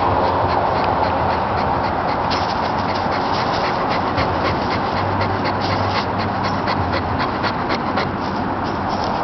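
Overweight dog panting rapidly, an even rhythm of about five quick breaths a second.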